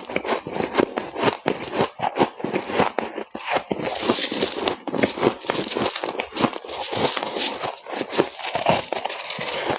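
Close-up crunching of frosty ice from a humidifier being scraped and eaten: a dense, irregular run of sharp crunches and crackles.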